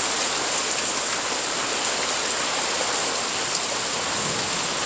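Rain pouring down steadily in a thunderstorm: an even, unbroken hiss.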